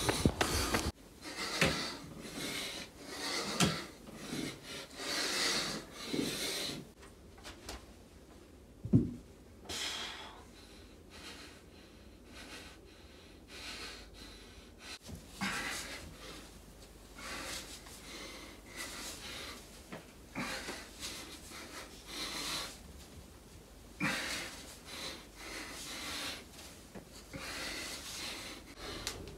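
A man breathing hard from exertion in short, breathy bursts, with rubbing and a few dull knocks; the sharpest knock comes about nine seconds in.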